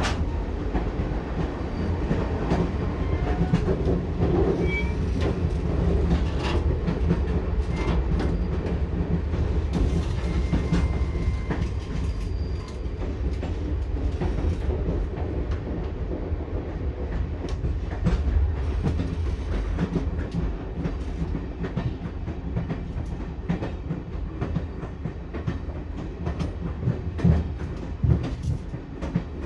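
Passenger train carriage running along the track: a steady low rumble with wheels clacking and knocking over the rails, heard from inside the train.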